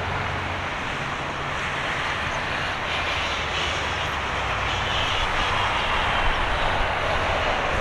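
Airbus A350-900's Rolls-Royce Trent XWB turbofan engines at high power as the airliner accelerates away on its takeoff roll. A steady rushing jet noise that grows slightly louder.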